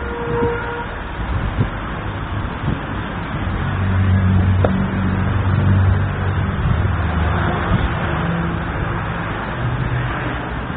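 Street traffic noise with a low vehicle engine hum that grows louder about four seconds in and eases off a few seconds later. A short steady tone sounds right at the start.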